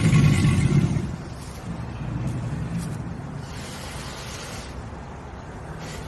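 American alligator bellowing: a deep rumble, loudest through the first second, sinking to a lower rumble and swelling again right at the end.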